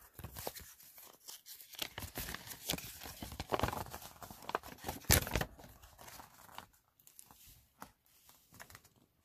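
Card-deck packaging being torn and crinkled by hand, a dense crackling rustle with one louder crack about five seconds in, fading to lighter handling near the end.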